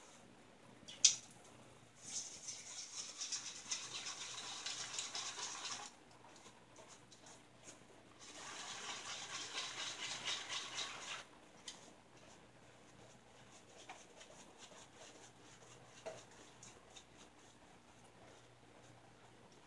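A sharp click about a second in. Then a Raven Brush Works shaving brush is swirled briskly against shaving soap to load it and build lather, in two spells of fast, scratchy wet swishing of about four and three seconds. After that come only faint light brushing sounds and small ticks.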